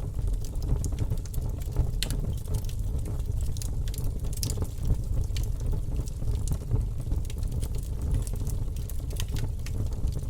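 Wood campfire burning, with a steady low rumble of the flames and irregular sharp crackles and pops from the burning wood.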